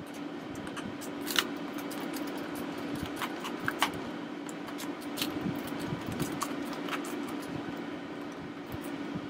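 Scattered small clicks and taps of hands and a small screwdriver on the plastic back of a TI-84 graphing calculator as its battery cover is worked off, with a few sharper clicks. A steady low hum runs underneath.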